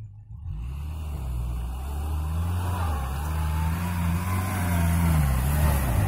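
Off-road 4x4's engine working hard under load, its pitch and loudness climbing slowly, then dropping back near the end.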